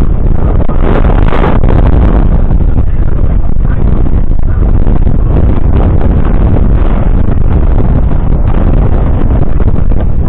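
Claas Axion 920's 8.7-litre six-cylinder diesel engine running up close, a loud steady rumble, with wind buffeting the microphone.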